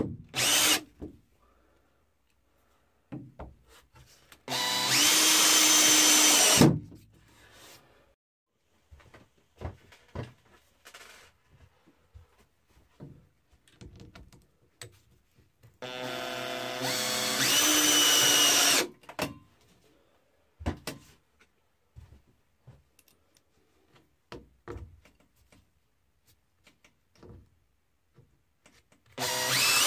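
Cordless drill driving screws through metal brackets into wood. It runs in three bursts, each up to a few seconds long, with a steady motor whine. Small clicks and knocks from handling come between the bursts.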